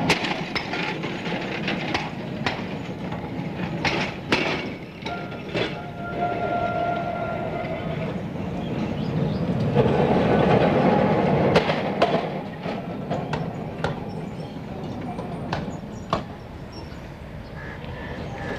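Electric tram running on its rails, with wheels clicking and knocking over the rail joints. It grows loudest as a car passes close about ten seconds in, then fades away.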